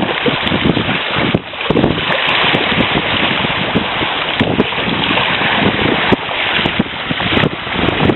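Wind buffeting the microphone over the hiss of sea waves washing on the shore.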